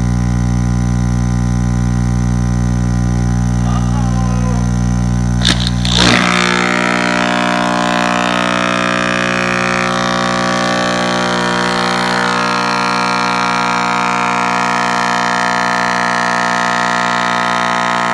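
Car subwoofer plugged straight into mains power, giving a loud, steady hum with many overtones. About six seconds in there is a burst of crackling pops and the deep bottom of the hum drops out, leaving a harsher, higher buzz as the overloaded speaker begins to fail.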